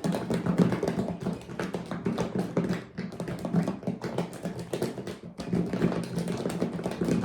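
Sauce-coated nuggets being shaken inside a closed plastic Tupperware container: a continuous, rapid, irregular rattle of knocks against the plastic.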